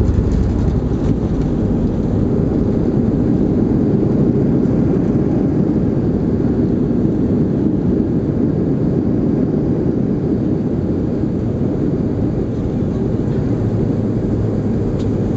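Cabin noise of a Boeing 737-300 rolling out on the runway after landing: a loud, steady low rumble of its CFM56 engines, airflow and wheels, easing a little near the end as the jet slows.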